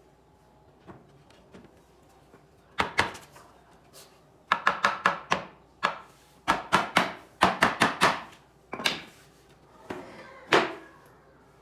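Hammer blows on wood: sharp, ringing strikes in irregular runs of several quick hits, with short pauses between the runs.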